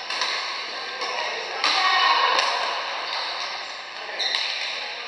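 Badminton racket strings striking a shuttlecock during a rally: a few sharp hits a second or more apart, each ringing briefly in a large hall.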